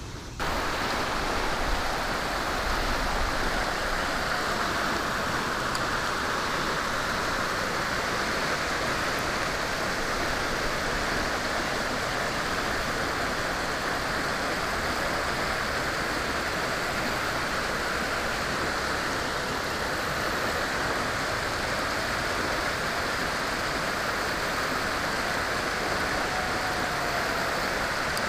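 Steady rush of water spilling over the lip of a concrete spillway, starting abruptly about half a second in.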